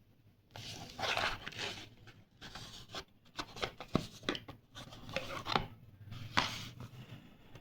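Rubbing and rustling handling noises, with a series of sharp clicks and taps in the middle, as of a small object being handled and fiddled with.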